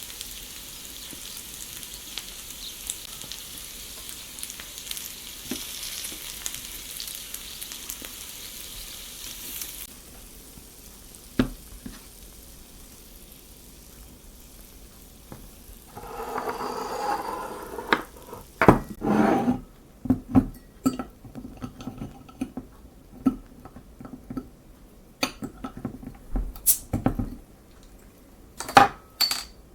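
Potatoes sizzling in a mini frying pan over a solid-fuel pocket stove, with a steady hiss that stops abruptly about ten seconds in. After a short rushing sound, a series of sharp clicks and knocks of utensils against the pan follows.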